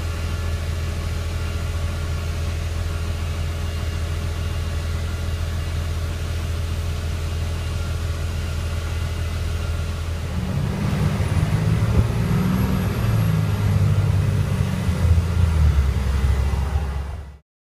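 Motor vehicle engine running with a steady low hum, growing louder and more uneven about ten seconds in, then cutting off suddenly near the end.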